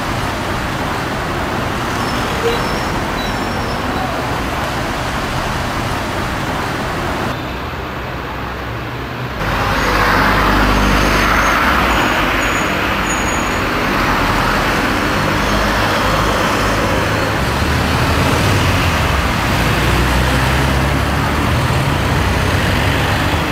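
Steady road traffic noise from cars and a slow-moving trolleybus. It dips briefly about seven seconds in, then comes back louder with a low rumble.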